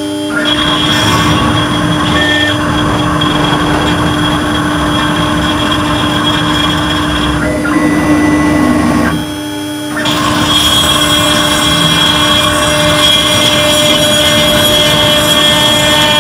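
CNC shoe-mold engraving router cutting a shoe-sole pattern into a metal block: a steady spindle tone over the rough rasp of the engraving bit. It drops briefly quieter at the start and for about a second around nine seconds in.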